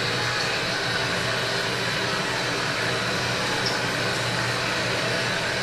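Steady crowd murmur of a ballpark, heard through a television's speaker.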